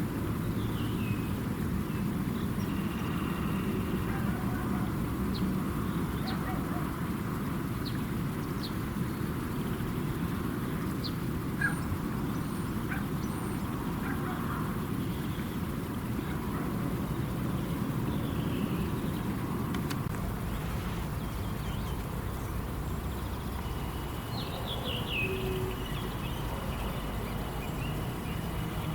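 Birds calling and chirping by a flooded river, with short calls scattered throughout and a quick falling trill near the end, over a steady low rumble.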